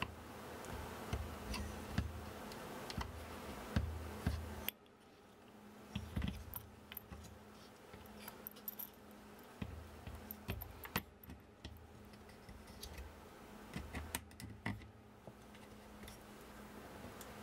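Hands assembling the metal frame of a Neje Master 2 laser engraver: scattered light clicks, knocks and small metallic jingles as the aluminium gantry arm, cable and small nuts and screws are handled and fitted. A faint steady low hum lies underneath.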